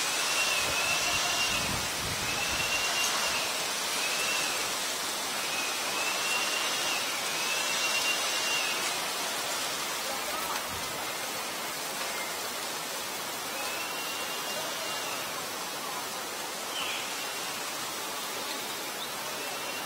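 Steady outdoor hiss with a series of short, high, arching whistles, repeated several times in the first nine seconds, then a longer one about fourteen seconds in and another near the end.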